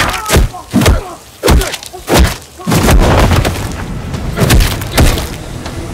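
Movie-trailer sound mix of heavy booming hits: five hard strikes in quick succession in the first two seconds or so. After that comes a denser, sustained rumble carrying a few more hits.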